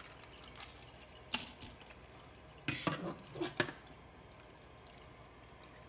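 Wet handling at a kitchen sink: a plastic grocery bag crinkling and gutted bluefish being moved in it, with water dripping. A few short, sharp rustles stand out, the loudest about three seconds in.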